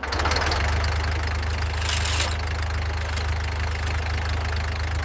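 Tractor engine coming to life and running steadily with a low, even hum, after a repair. A brief hiss comes about two seconds in.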